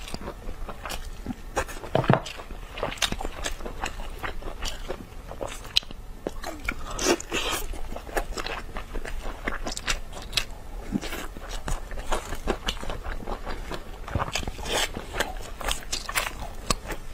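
Close-miked eating sounds: biting and chewing glazed rib meat pulled off the bone, a steady run of small wet clicks and crackles, loudest about two seconds in.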